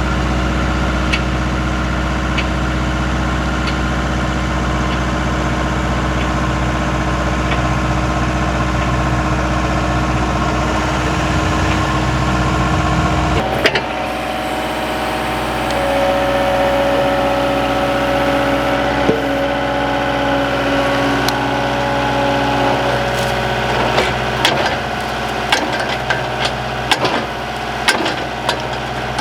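Skid steer engine running steadily. About halfway through the sound changes abruptly to a lighter engine tone with less low end, and sharp knocks and clatter come in over the last few seconds.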